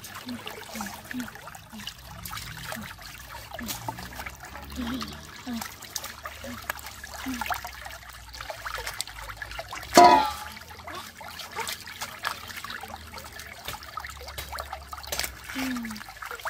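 Small stream trickling over rocks while sea crabs are rinsed by hand in the running water, with light splashing and handling clicks. One sudden loud sound with a falling pitch about ten seconds in.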